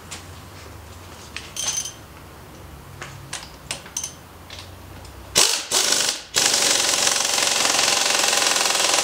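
Pneumatic impact wrench on the front wheel's axle nut: a few light metal clicks and taps, then about five seconds in two short bursts of hammering, after which it hammers continuously, fast and loud.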